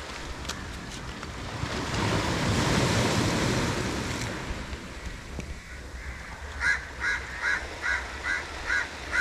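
Surf washing up the beach, swelling and fading over a few seconds. In the second half a bird calls about seven times in quick succession, a little over two calls a second.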